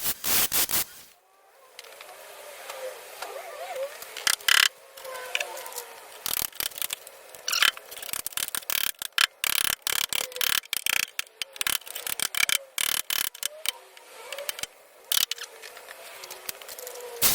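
Rusted rear sill bodywork on a Vauxhall Corsa D being cut away: irregular metal scraping, rubbing and sharp clatters, in short uneven bursts with no steady motor tone.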